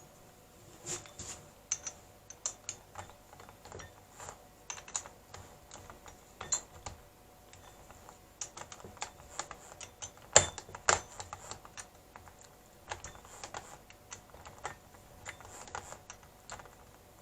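Irregular light clicks and knocks of a drill and hole saw being handled and set in place on a plastic pipe, with a couple of louder knocks about ten seconds in.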